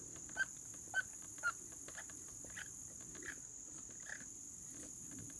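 Primer purge bulb on a NEO-TEC NH 841 chainsaw being pressed over and over, a short soft squelch every half second or so, growing fainter, as the carburettor is primed for a cold start on full choke. Crickets chirr steadily in the background.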